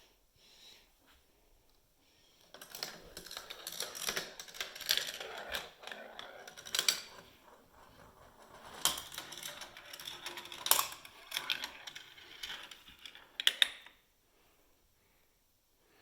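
Marbles rolling and clattering down a Gravitrax plastic marble run, a steady rattle with sharp clicks and knocks as they drop onto lower tracks. The run goes for about eleven seconds, then stops.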